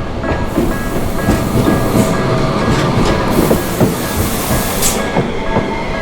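A Tokyu Setagaya Line two-car light-rail train passes over a level crossing, its wheels rumbling and knocking over the rail joints, loudest in the middle. Throughout, the Japanese crossing's electronic warning bell rings a steady, fast repeating two-tone clang.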